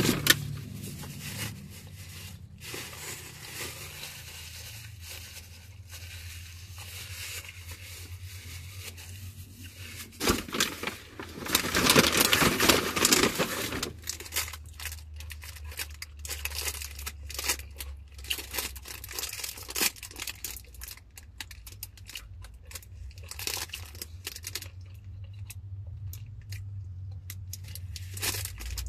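Crinkling and rustling of takeout food packaging with scattered clicks and taps as food is handled and eaten, and a loud stretch of rustling about eleven seconds in that lasts some three seconds.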